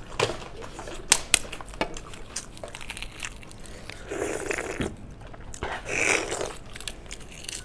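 Eggshell cracking and crackling as an egg is peeled by gloved hands, with a few sharp cracks in the first two seconds and light crunching and tearing after.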